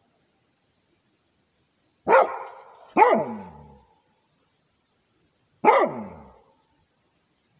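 Rhodesian ridgeback barking to guard its territory: three barks, two close together about two seconds in and a third near the end, each dropping in pitch.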